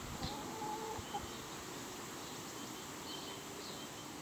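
Backyard chickens and small birds calling softly. A drawn-out hen note sounds in the first second, with short high chirps scattered throughout over a faint steady outdoor background.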